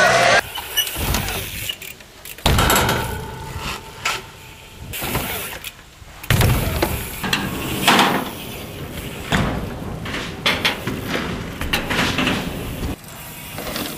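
BMX bike riding: tyres rolling over ramps and concrete, broken by several sharp knocks and thuds of the bike landing and its metal parts clanking, with abrupt jumps in sound between short clips.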